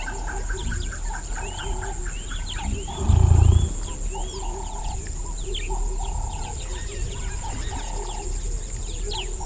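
Wetland wildlife chorus: an animal repeats a short call about once a second over a fast trill, many high bird chirps and a steady high insect whine. About three seconds in there is a loud, deep rumble lasting just over half a second.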